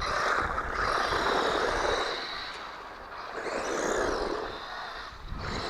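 Small 1/12-scale four-wheel-drive electric RC car being driven: motor whine and tyre noise that swell, fade about halfway through and swell again. Around four seconds in, the whine rises and falls in pitch as the car speeds up and slows.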